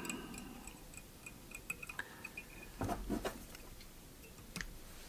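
Faint, irregular small ticks, then a few louder short clicks, from hands handling fly-tying thread, wire and tools at the vise.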